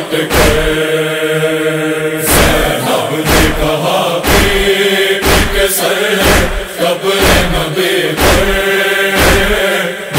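Noha lament chant: voices holding long wordless notes between sung lines, over heavy thumps about once a second.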